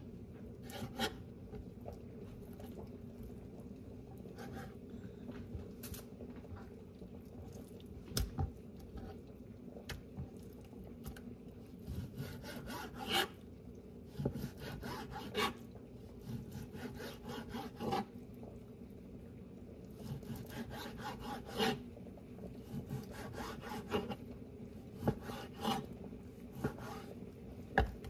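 Kitchen knife slicing raw chicken breast into strips on a plastic cutting board: short runs of back-and-forth sawing strokes with pauses between, and now and then a sharp tap of the blade on the board.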